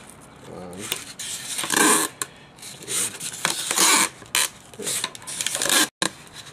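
Strong clear tape being pulled off its roll and wrapped around a Styrofoam-filled plastic coat hanger blade. It makes a string of short, noisy rasps, roughly one a second, in the latter part.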